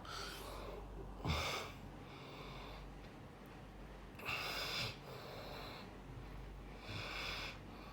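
A sleeping person snoring, with noisy breaths: three louder ones about three seconds apart, the first catching in a short snort, and softer breaths between them.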